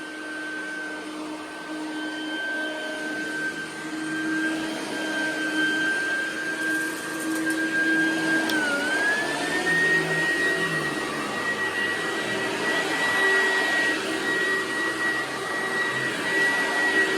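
1996 Oreck XL9200 upright vacuum cleaner running with a steady high whine. About halfway through, the whine dips briefly, then settles at a higher pitch and a little louder.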